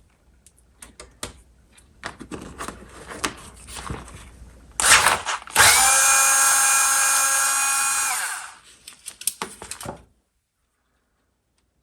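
Clicks of small metal parts being handled, then a power screwdriver runs for about two and a half seconds, a steady whine that drops in pitch as it stops, backing a screw out of a jukebox mechanism.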